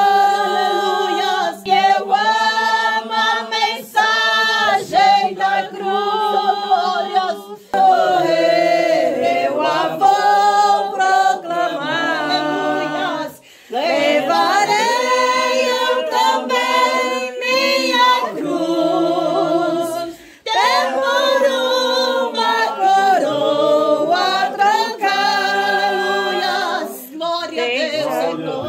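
Voices singing a Portuguese hymn together, the lines held with vibrato, with short breaks between phrases about halfway through and again a few seconds later.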